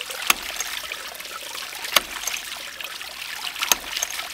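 Hydraulic ram pump waste valve cycling, snapping shut with a sharp clack three times, about every second and three-quarters, over a steady trickle of water spilling from the valve. The pool of water held over the valve by a screw-on bushing cup does not muffle the clack.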